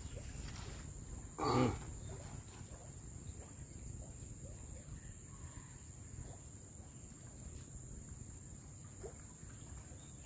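A steady high-pitched insect drone over low, even outdoor noise, with one short human vocal sound about a second and a half in.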